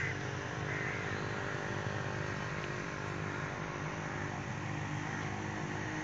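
A steady engine drone runs throughout, with a couple of short chirps about a second in.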